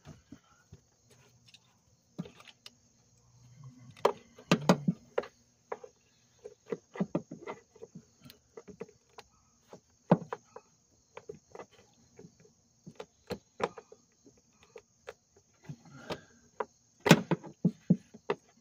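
Irregular clicks, knocks and scrapes of a hand tool and hands working on parts down behind a car engine, loosening a screw on the intake boot. A few louder knocks come about four seconds in and again near the end.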